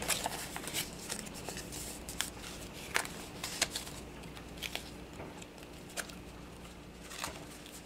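Paper and card being handled: soft rustling with scattered light clicks and ticks as a paper envelope is folded shut and cardstock tags are shuffled and set down.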